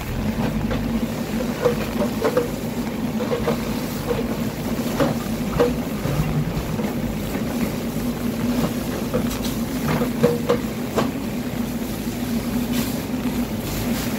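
An engine running with a steady low drone, under the hiss of a fire hose spraying. Sharp cracks and pops come every second or so from the burning timber of a house fire.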